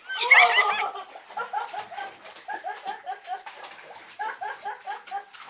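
People laughing: a loud burst of high laughter at the start, then a run of short, rhythmic laughs.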